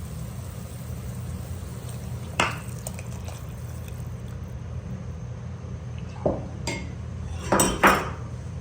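Pots and utensils knocking and clinking a handful of times during cooking, the loudest two close together near the end, over a steady low hum.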